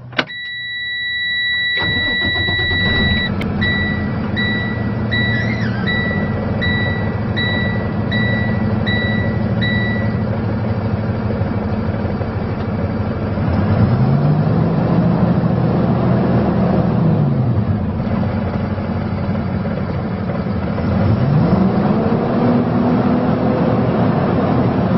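2012 Freightliner M2's Cummins diesel engine cranking and starting, then idling, then revved twice, the second rev held high near 2,400 rpm. A steady high dashboard warning buzzer sounds at start-up, then turns to short repeated beeps that stop about ten seconds in.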